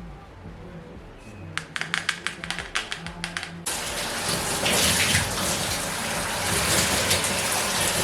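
A quick series of about a dozen sharp clicks, then water suddenly starts gushing from a tap at full flow about halfway through and keeps running.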